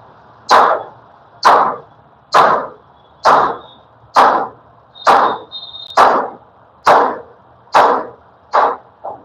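Hammer blows struck at a steady pace, about one a second, each a sharp hit with a short ring; the last blow near the end is lighter.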